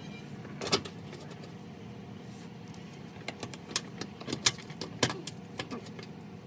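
Light clicks and metallic clinks of hand tools and screws being handled: a single sharp one about three quarters of a second in, then a busier run of clinks from about three to six seconds in.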